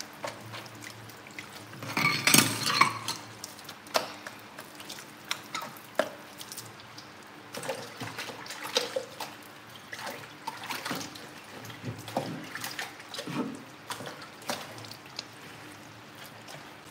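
Kitchen tap running into a stainless-steel sink while hands rinse under it, with irregular knocks and clatters of things being handled in the sink; the loudest clatter comes about two seconds in.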